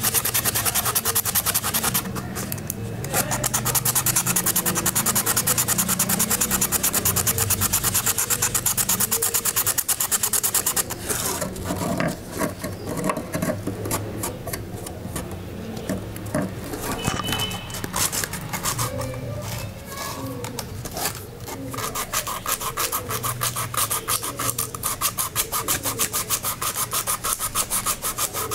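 Sandpaper rubbed in quick back-and-forth strokes along the rusted steel blade of a pair of thread snips, scouring off the rust. The strokes are fast and loud at first, with a brief break about two seconds in, turn lighter and uneven about eleven seconds in, and pick up again near the end.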